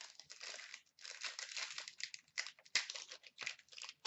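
Plastic trading-card pack wrapping being handled and torn open, crinkling in irregular bursts with a few sharp crackles and a short pause about a second in.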